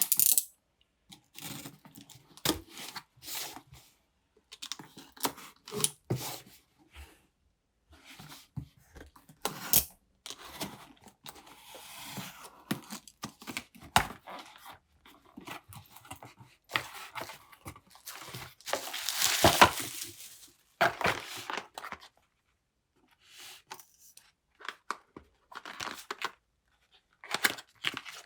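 Irregular rustling, crinkling and tearing of paper or plastic, mixed with small clicks and taps as items are handled; the loudest tear or rustle comes about two-thirds of the way in.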